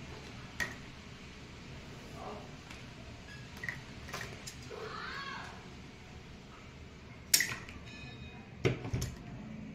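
Handling noise of a pair of scissors and plastic drip-irrigation fittings on a table: a few scattered sharp clicks and knocks. The loudest is a sharp click a little past seven seconds in, followed by two duller knocks about a second later.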